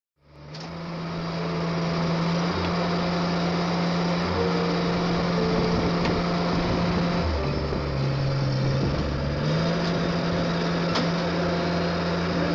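Background music fading in, with low sustained bass notes that step to a new pitch every few seconds over a steady, hissy texture.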